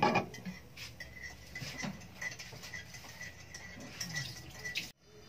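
A glass pot lid is set down on an enamelled pot with a clatter at the start. Pork then simmers in water under the lid, with faint irregular ticking and popping. The sound cuts off abruptly near the end.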